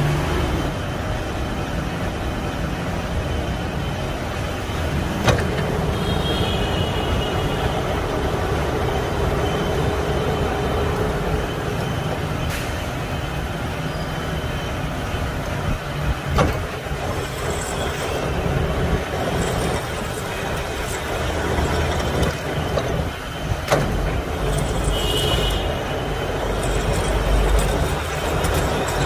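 Metal lathe running steadily while its threading tool cuts a thread on a steel shaft, with a few sharp clicks and brief high squeals about six seconds in and again near the end.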